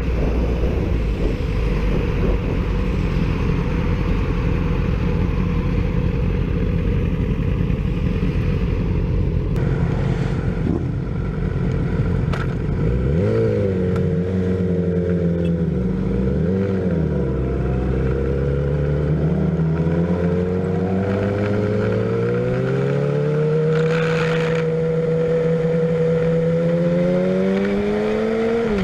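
Sport motorcycle engine running at highway speed under heavy wind noise on the microphone. About halfway through, the engine note dips and rises with throttle changes, then climbs steadily over the last several seconds as the bike accelerates.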